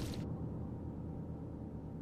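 Roar of a burning wooden treehouse cuts off sharply about a quarter second in, leaving a low rumble that slowly fades.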